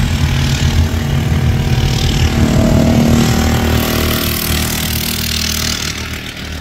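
Racing lawn mower's small engine running hard as it passes close by, loudest about halfway through and fading as it pulls away.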